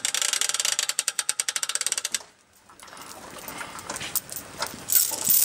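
A ratchet clicking rapidly and evenly, stopping suddenly about two seconds in, followed by quieter scattered clicks and handling noise.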